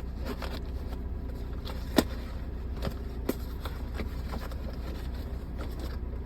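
Heavily wrapped cardboard box being worked open by hand: scattered taps, knocks and rustles, the sharpest knock about two seconds in, over a steady low hum.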